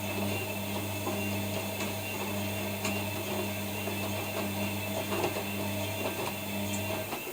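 ELIN WA 14 M washing machine's motor running with a steady hum for about seven seconds, stopping just before the end, with faint ticks about once a second.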